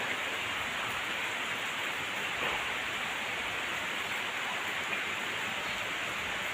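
Steady rain falling, an even hiss of rain on surfaces with no let-up.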